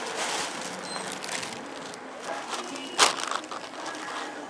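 Outdoor street noise, a steady hiss, with one sharp knock about three seconds in.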